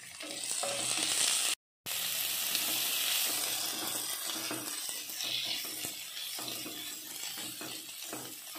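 Sliced onions sizzling in hot oil in a nonstick pan while a wooden spatula stirs them; the sound cuts out for a moment about a second and a half in.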